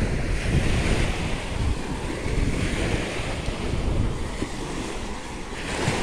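Wind buffeting the microphone over the steady wash of small surf on a sandy beach, with a wave surging a little louder near the end.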